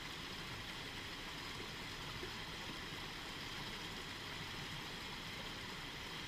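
Steady, even hiss with nothing else happening.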